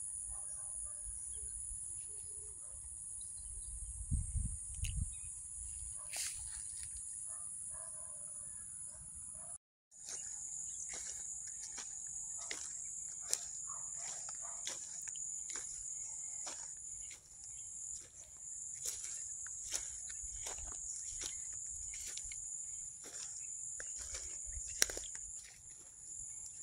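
A steady high-pitched insect chorus, broken by a brief dropout about ten seconds in. Once it returns, short ticks of footsteps through dry grass and weeds come about once or twice a second.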